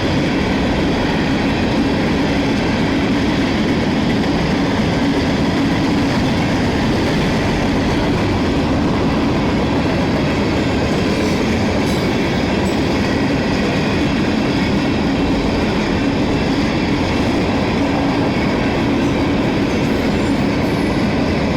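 Freight train passing, its cars running steadily over the rails.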